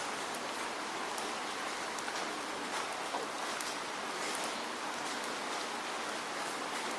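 Heavy rain falling steadily: a dense, even hiss with many scattered drop ticks.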